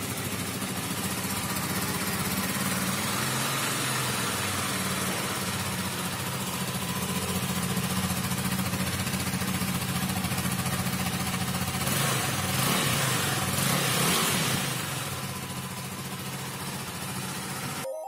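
KTM Duke 390's single-cylinder engine idling steadily, heard close to the exhaust, with two brief rises in engine speed about two-thirds of the way in.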